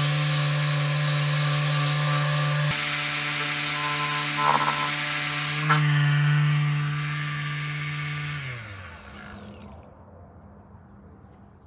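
Small electric detail sander running steadily with a motor hum and the hiss of the pad on wood, sanding down dried filler. Near the end it is switched off and winds down, its hum falling in pitch.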